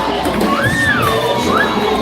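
Worship music with a congregation singing and cheering; one voice or instrument glides up and back down in a long note about half a second in.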